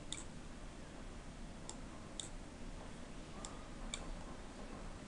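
Computer mouse button clicking: about five sharp clicks, mostly in press-and-release pairs about half a second apart, over a faint steady hiss.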